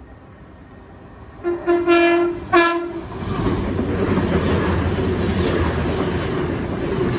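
A TransPennine Express train sounds its horn in two short blasts about a second and a half in. It then runs through the station at speed with a steady rush of wheels and bodywork going by.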